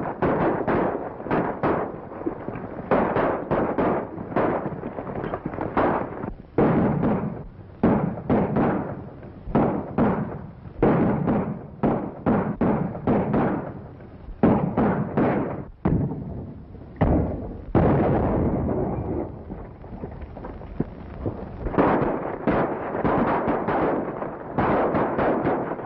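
Repeated gunshots in a running gunfight on horseback, cracking out irregularly and several a second at times, over the noise of galloping horses.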